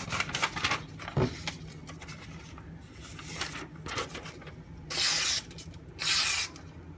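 Two short rasping strokes of a D2-steel knife blade, about a second apart near the end, after some light handling noise. These come as the freshly sharpened 3k edge is being worked or tested.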